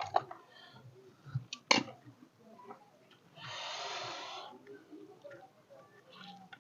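A person eating: a few sharp mouth or utensil clicks, then a breathy rush of air lasting about a second, midway through.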